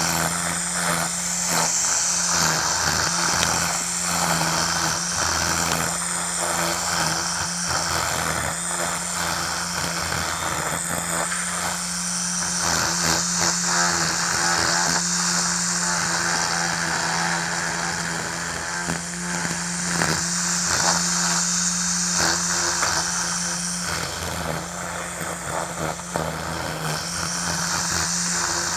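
Ryobi 40V cordless string trimmer running steadily, its spinning line whipping through grass with a high hiss and frequent small ticks. A steady low hum runs underneath.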